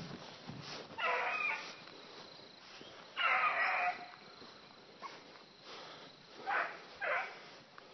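A dog barking four times, each bark pitched and under a second long: one about a second in, a longer one around three seconds in, and two short ones close together near the end.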